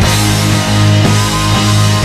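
Rock music with distorted guitar and a steady drum beat.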